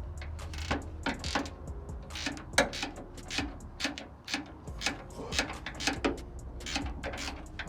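Hand tools working bolts on a truck's front end: irregular metallic clicks and clinks, with a low steady hum underneath.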